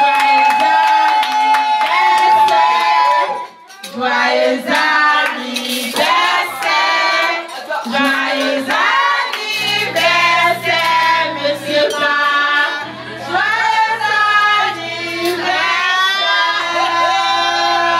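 A woman singing into a handheld microphone, through amplification, with long held notes. About halfway through, low held notes join underneath as accompaniment.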